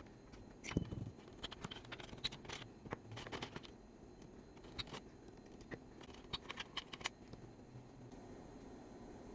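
Scattered light clicks, taps and scrapes of small parts and tools being handled while working on a network switch's fans, coming in short irregular clusters.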